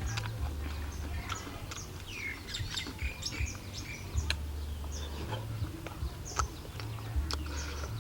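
Birds chirping and tweeting, many short overlapping calls with quick rising and falling notes, over a low rumble, with a few sharp clicks.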